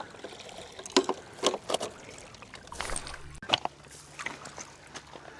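Sharp clicks and knocks as a carp bait boat is loaded with rigs and bait, then a steady low hum that starts about halfway through.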